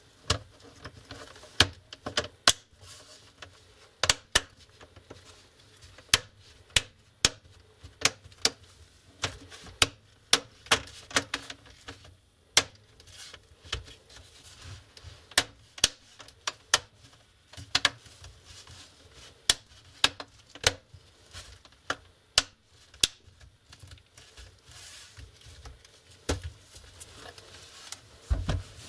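Sharp plastic clicks at irregular intervals, some in quick pairs and runs: the plastic screen bezel of a Lenovo IdeaPad laptop being pressed along its edges so its clips snap into place. A low thump near the end.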